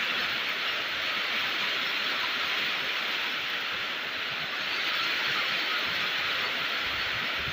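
Steady rain falling, an even hiss of countless drops with no single hits standing out.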